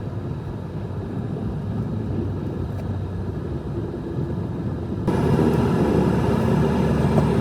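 A motor vehicle running, a steady low rumble of engine and road noise, which steps up abruptly in loudness about five seconds in.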